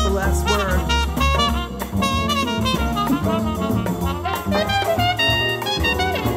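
Jazz band playing an instrumental break, with trumpets trading fast solo lines over bass.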